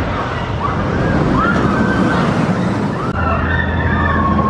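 Several people screaming on a theme-park ride, in long overlapping screams that rise, hold and fall, over a loud steady rushing noise. A low hum comes in about three seconds in.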